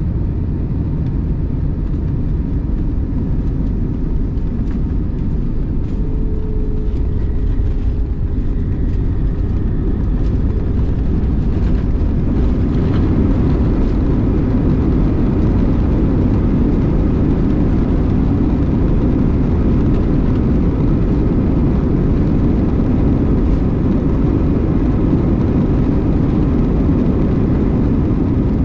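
Steady rumble of an Airbus A321's engines and airflow heard inside the passenger cabin, growing louder about twelve seconds in.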